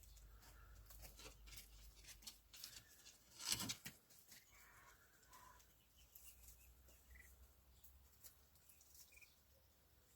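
Faint scattered clicks and rustling with a few short, soft peeps from young chickens, and one louder rustle about three and a half seconds in.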